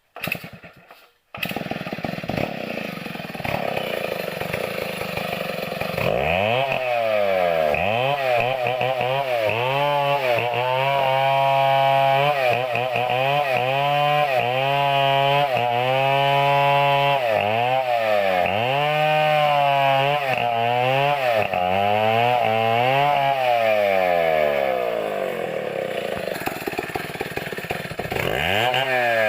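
Chainsaw starting up about a second in, running lower for a few seconds, then revved hard with its pitch dropping and rising again and again, the pattern of a saw working through a fresh coconut palm trunk.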